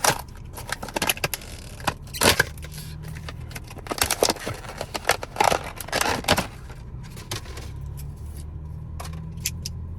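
Metal clicks and clinks of tongue-and-groove (channel-lock) pliers being handled and put into a tool bag, busiest in the first seven seconds. A low steady hum runs underneath, stronger near the end.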